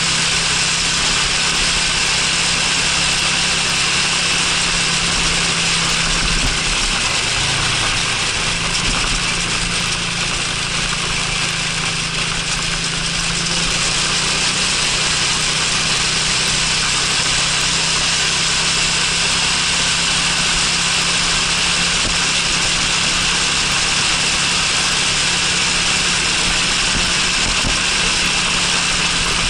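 Honda Freeway 250cc scooter's engine running steadily under way, with a constant low hum that shifts slightly in pitch about seven seconds in. Strong wind and road hiss on the microphone lies over it.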